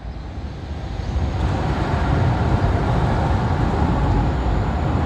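Steady low rumble of trains approaching on the rails, swelling over the first two seconds and then holding steady.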